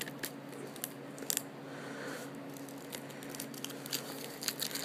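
Plastic wrapping on a DVD box set crinkling and crackling in scattered sharp clicks as it is picked at and pulled, being stubborn to come off.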